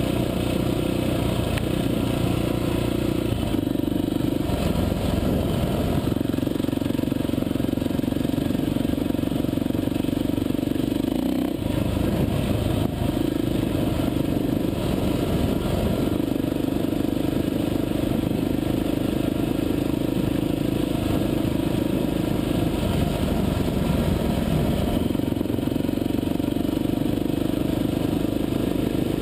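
Off-road motorcycle engine running hard while riding a dirt trail, heard from on board the bike. The engine note shifts up and down every few seconds as the throttle changes.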